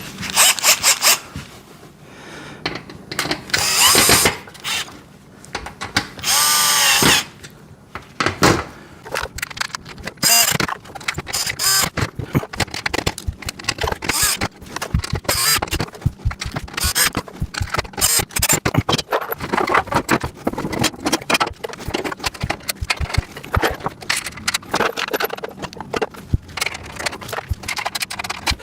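A power drill/driver runs in two short bursts of about a second each, its whine shifting in pitch, driving the screws that fasten a caster wheel to the metal rack's bottom tray. Between and after the bursts come many small metallic clicks and rattles of screws, nuts and parts being handled.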